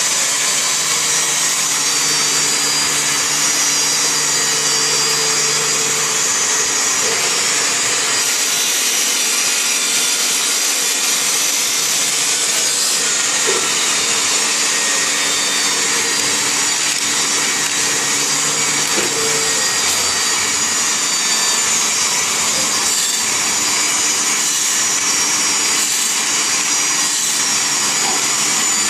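CNC milling machine running: a steady, loud whirring hiss, with faint hums that come and go.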